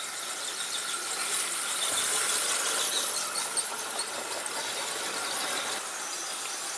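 3D-printed S-scale model trains running on the track: a steady high-pitched squeal and whir from the small drive motors and wheels on the rails, a little louder in the middle.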